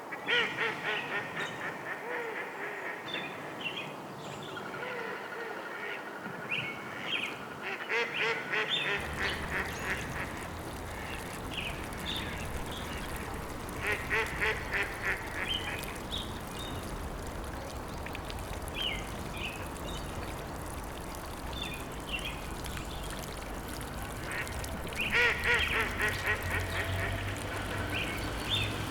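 Ducks quacking in several bursts of rapid calls, with short chirps from other birds between them. From about nine seconds in, a steady low rumble joins underneath.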